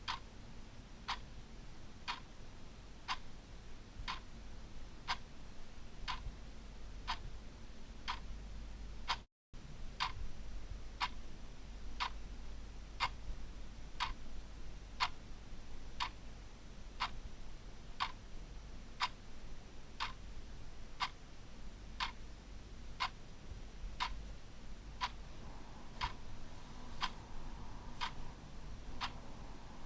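Clock ticking steadily, about one tick a second, broken by a brief gap of silence about nine seconds in.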